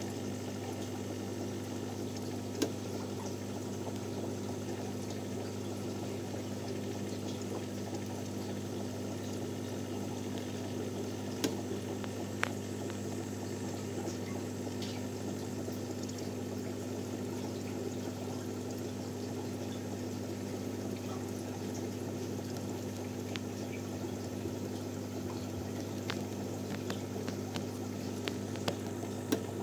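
Aquarium pump running: a steady low hum under continuous bubbling and trickling water, with a few faint clicks.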